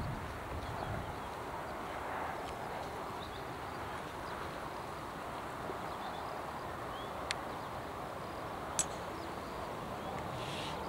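Steady outdoor ambience of a quiet waiting crowd, a faint even hiss, with two short sharp clicks about a second and a half apart a little after the middle.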